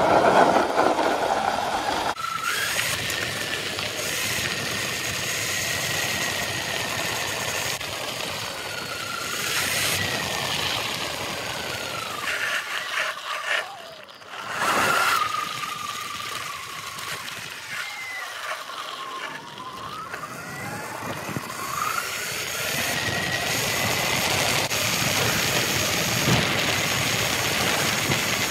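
Segway X260 electric dirt bike being ridden: its electric motor whines, the pitch rising and falling with speed, over heavy wind rush on the microphone. The whine sinks low and climbs back up about two-thirds of the way through.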